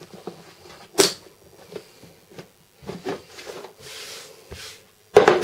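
Hollow hard-plastic case being handled and shifted on a wooden workbench: scattered knocks and scrapes, with a sharp knock about a second in and a louder clatter of knocks near the end.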